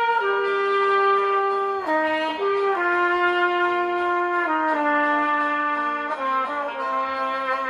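Trumpet playing a slow melody of long held notes that step mostly downward in pitch.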